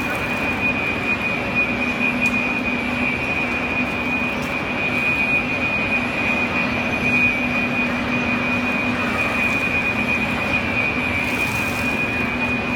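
Steady, loud machine noise with a continuous high-pitched tone held over it and a low hum beneath.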